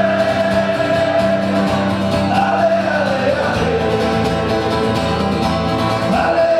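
Music: a song with a held singing voice over instruments.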